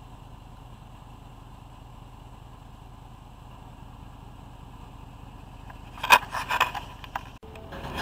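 Steady low background hum, then a short cluster of loud knocks and rattles about six seconds in that stops abruptly.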